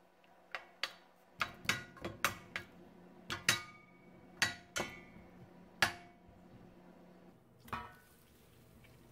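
Wooden spoon knocking and clinking against the side and bottom of a stainless steel pot while stirring melting butter, about a dozen irregular knocks, some with a brief metallic ring.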